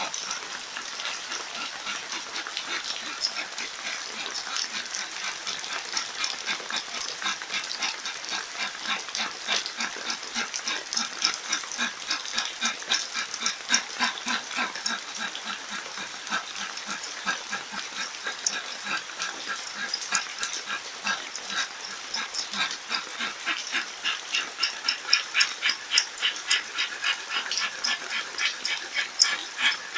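A man doing fire breath: rapid, forceful panting breaths through the open mouth in a quick, even rhythm, over the steady hiss of falling rain.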